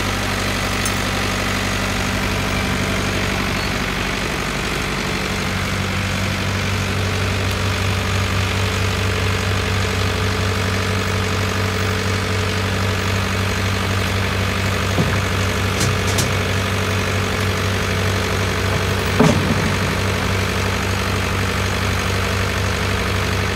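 JCB full-turn excavator's diesel engine idling steadily, with a few short metal clanks around two-thirds of the way in and a louder knock shortly after.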